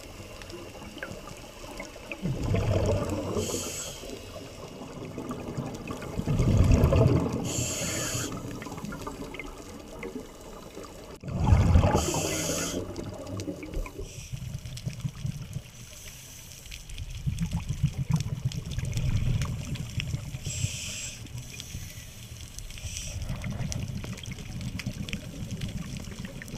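Scuba regulator breathing heard underwater: rumbling bursts of exhaled bubbles every four to five seconds, each paired with a short hiss.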